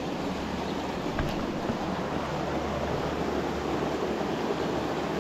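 Steady rush of creek water running over and between rocks.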